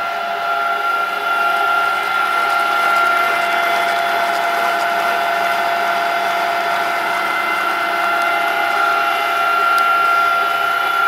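Electric gear motor driving the plow mixer's shaft, running steadily with a constant high whine over a mechanical hum.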